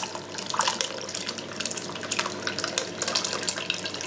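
Thin tomato and red wine sauce poured from a bowl into a clay pot over a piece of pork, splashing and trickling irregularly.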